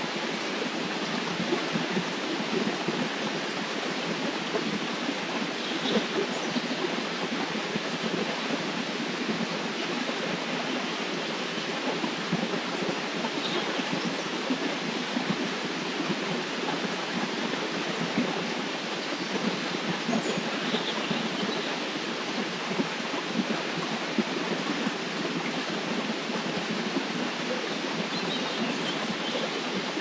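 Steady rush of flowing river water.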